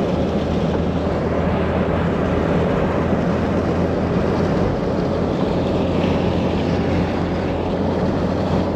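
Old Nissan Patrol 4WD driving along an unsealed dirt road: a steady engine drone with tyre and road rumble.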